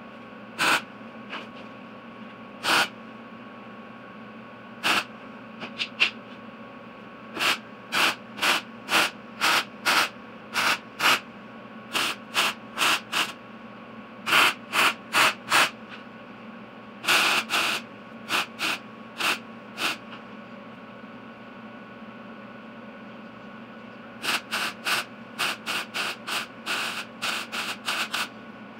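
Wire-feed welder arc crackling in a string of short bursts, each under a second, as tack and stitch welds join a steel end cap to an old water tank. A pause of a few seconds falls past the middle, and a steady hum runs underneath.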